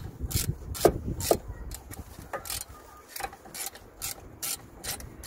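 Ratchet clicking in short strokes while running in a brake caliper's guide-pin bolt, about two or three sharp clicks a second, irregular, with a couple of louder metal knocks about a second in.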